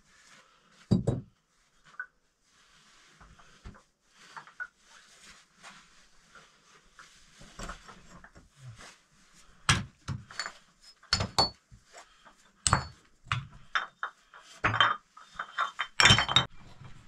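Flat stone slabs knocked and set down on one another, giving a string of sharp clacks and clinks. There is one loud knock about a second in, then the knocks come thick over the last seven seconds.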